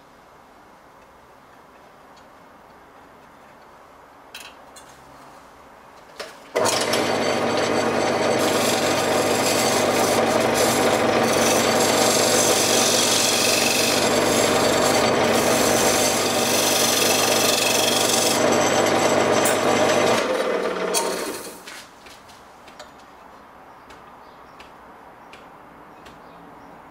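Wood lathe running with a turning tool cutting into a spinning wooden disc, a dense scraping noise over the motor's steady hum, as the recess for the LED ring is trimmed to fit. It comes in suddenly about six seconds in and dies away about twenty-one seconds in as the lathe spins down; small clicks of handling before it.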